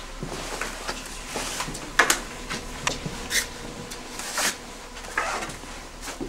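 Footsteps and the rustle and scrape of jackets and backpacks as several people walk close together, with irregular crunches and scuffs about a second apart, over a faint steady whine.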